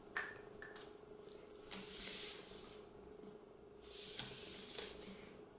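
Handling of folded paper and a marker pen: a couple of light clicks near the start, then two soft scratchy rustles, the second about four seconds in as the marker draws on the paper. A faint steady hum runs underneath.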